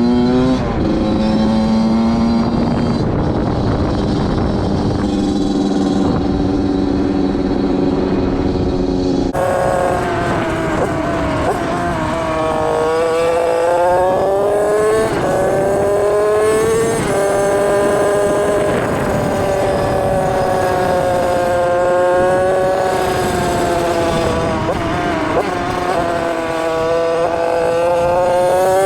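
Suzuki RM85's 85cc single-cylinder two-stroke engine under way on a ride. About nine seconds in the sound changes abruptly, and from then on the revs climb and drop again and again as the bike accelerates and backs off.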